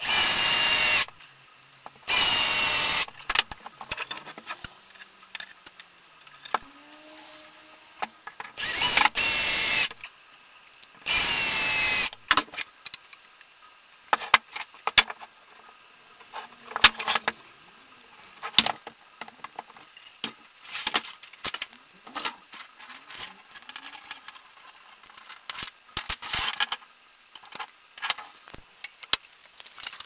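Power drill running in four short bursts of about a second each, driving screws through a metal hinge into a wooden bar. After them come scattered clicks and knocks as wooden pieces are handled and fitted together.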